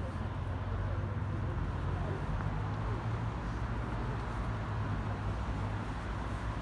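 Steady city street ambience: a low traffic hum from a nearby road, with faint voices of passers-by.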